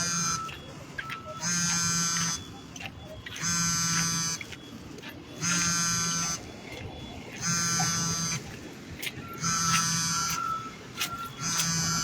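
An electronic alarm buzzing in regular pulses, each a little under a second long and repeating about every two seconds.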